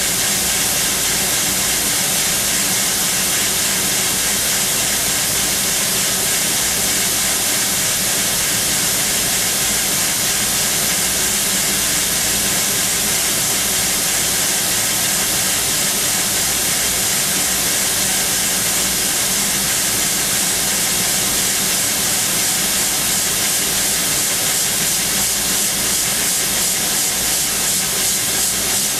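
Sodick ND80L machining centre peck-drilling hardened SKD61 tool steel with a 1 mm OSG three-flute carbide drill, its spindle at 13,000 rpm: a loud, steady hiss, strongest in the high end, with faint steady machine tones beneath.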